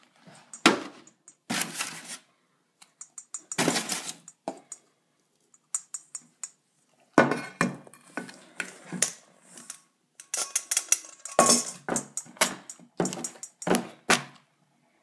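Stainless steel mixing bowl being stirred, knocked and tipped: irregular clattering knocks and scrapes with short pauses in between.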